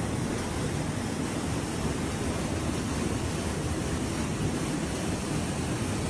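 Steady rushing of water from a waterfall still flowing beneath its ice and pouring into the pool below.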